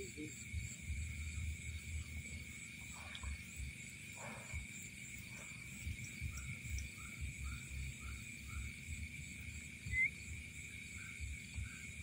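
Night insect chorus: a steady high-pitched drone with a faster pulsing trill above it, over low rumbling from footsteps and handling. From about six seconds in, a run of short soft calls repeats several times a second, and a brief sharp chirp comes about ten seconds in.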